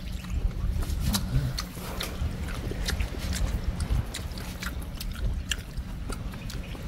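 People eating with their hands from banana leaves, with small scattered clicks, smacks and chewing close to the microphone. Under it runs a steady low rumble on the microphone.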